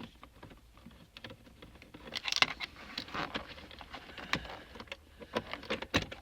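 Irregular metallic clicks and knocks of a hand tool working a 10 mm bolt loose from a metal frame, busiest a couple of seconds in, with two sharper knocks later on.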